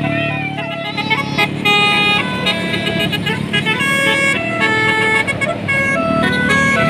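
Bus telolet horn, a Basuri multi-tone air horn, playing a quick tune of short stepped notes, one held tone after another. The bus engine runs with a low steady hum underneath.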